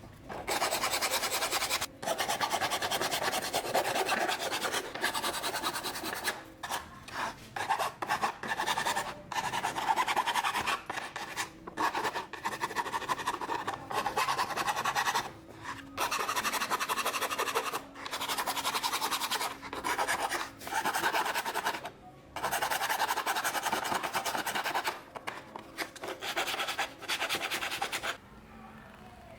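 Hand abrasion on a part of an old Makita electric blower: long rasping strokes of sanding or filing, each lasting one to three seconds, with short breaks between them.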